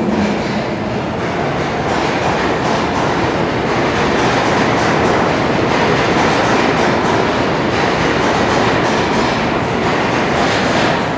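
New York City subway train moving through the underground station: a loud, steady rumble of steel wheels on the rails with some clickety-clack.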